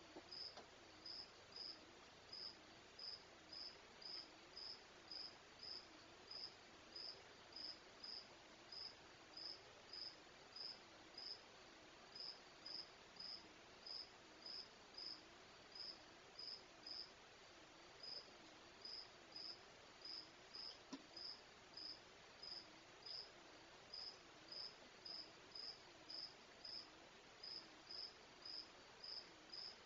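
A cricket chirping faintly and steadily, about two short chirps a second.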